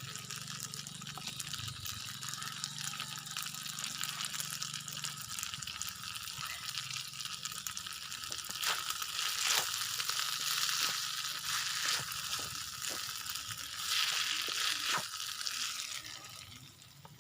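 Fried rice sizzling in a pan, with crackles and the scrapes of a spatula stirring it; the sizzle dies down near the end.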